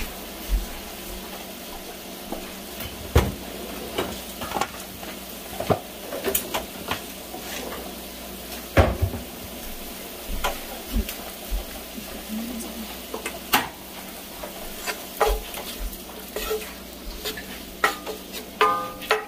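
Lobster meat sizzling in butter in an enamelled cast-iron skillet, with scattered knocks and clinks of cookware and utensils. Near the end, a hand stirs the lobster around in the pan.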